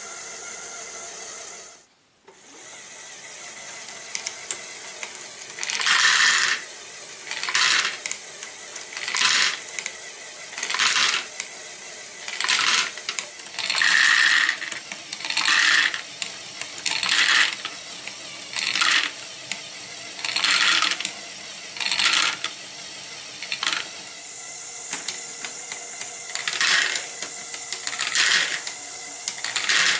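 LEGO Great Ball Contraption drum module running: a steady small-motor whir under a regular clatter of plastic balls tumbling through the rotating drum, about once every one and a half seconds. The sound drops out briefly about two seconds in.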